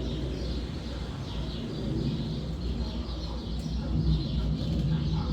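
Wind in a forest, a steady low rumble that swells about four seconds in, with small birds chirping over it again and again.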